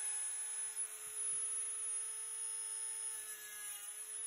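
Dremel rotary tool running at a steady high-pitched whine while its cut-off wheel cuts a bolt to length.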